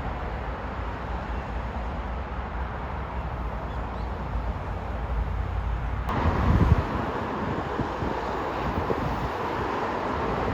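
Outdoor ambience: a steady low rumble of wind on the microphone and distant traffic. The background changes abruptly about six seconds in, with a brief low bump just after.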